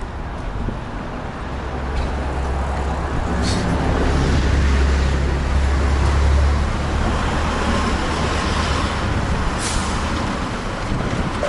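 Road traffic from a bicycle: a heavy road vehicle rumbling close by, loudest from about two seconds in to past the middle, with two short hisses, one about three seconds in and one near the end.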